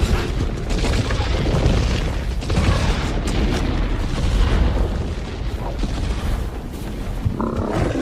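A dense, continuous crowd or herd sound-effect mix: a heavy low rumble under crowd-like voices and animal roars, swelling and easing a few times.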